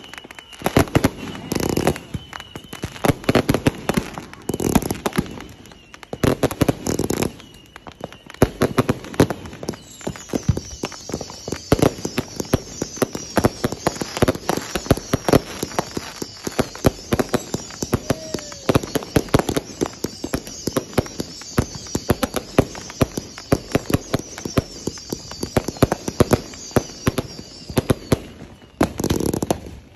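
Warpath 260-shot firework cake firing: a rapid, continuous string of launch shots and bursting stars, with a louder volley near the end.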